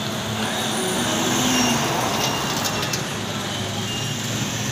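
Street traffic noise: a steady din of vehicles moving along a busy street, with a few faint clicks about two seconds in.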